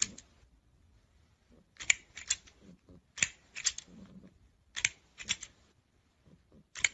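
Green plastic toy crocodile clacking: sharp plastic clicks in quick groups of two or three, about every second and a half.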